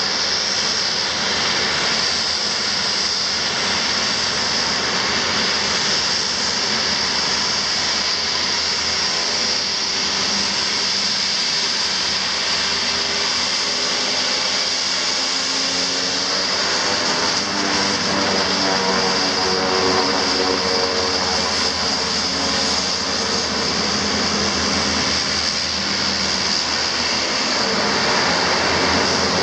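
Twin Garrett TPE331 turboprop engines of a Dornier 228 running at taxi power: a steady high turbine whine over the drone of the propellers. In the second half the propeller tones waver in pitch as the engines are worked to turn the aircraft, and the sound grows slightly louder near the end.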